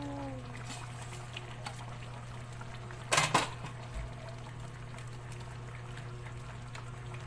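Liquid being poured into simmering escabeche sauce in a pan, with a brief clatter about three seconds in and a small knock just after.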